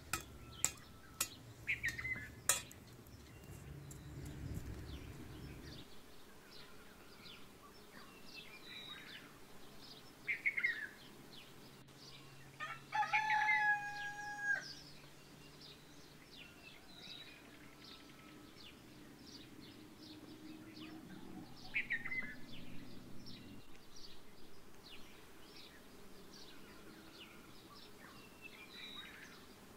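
A rooster crows once, about halfway through, in a single call of about a second and a half. Small birds chirp throughout, one falling call repeating every several seconds. A few sharp clicks come near the start.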